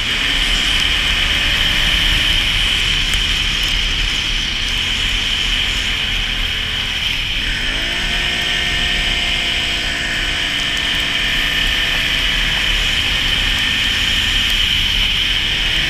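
Can-Am Renegade 570 ATV's V-twin engine running under way, with a steady rush of noise over it. About halfway through, the engine note dips and then climbs again as the throttle comes back on.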